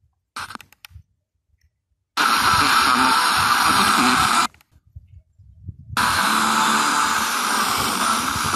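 A radio receiver being tuned across the FM band: near silence, then loud static hiss that cuts in suddenly about two seconds in, drops out for a moment about halfway through, and comes back.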